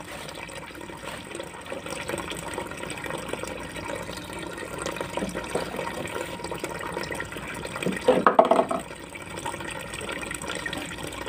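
Liquid running steadily from a hose into a bucket of solution, a continuous splashing trickle into the surface.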